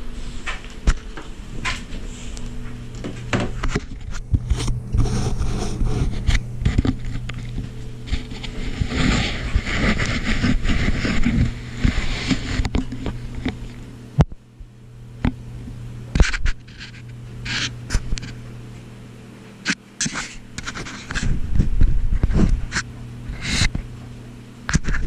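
Handheld action camera being moved and handled: rubbing and sharp knocks on the camera and its microphone, over a steady low hum.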